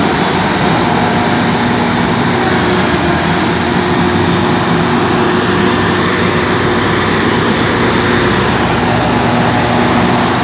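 Heavy tracked excavator's diesel engine running steadily at close range: a loud, constant hum with a few unchanging low tones.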